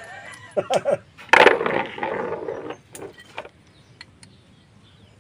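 Steel tools and fittings on a hydrostatic transmission pump clinking and knocking as an Allen key is fitted to a housing bolt. A louder metallic clatter comes about a second and a half in and lasts over a second, followed by a few light clicks.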